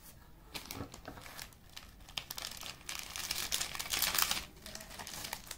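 Plastic snack wrappers and a cellophane pouch crinkling as they are handled, with irregular crackles that are loudest a little after halfway.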